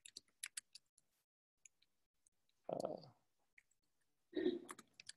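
Faint keystrokes on a laptop keyboard as a terminal command is typed: a quick run of clicks in the first second, then scattered single taps. Two short, low sounds come about three and four and a half seconds in.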